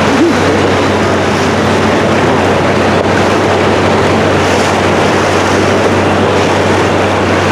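Motorboat engine running steadily under way with a low hum, with wind and the rush of choppy water over it.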